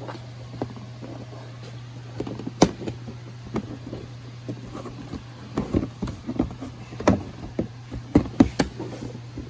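Knocks and clicks of a car dash panel being fitted back in place and screwed down, the sharpest about two and a half seconds in and a cluster near the end, over a steady low hum.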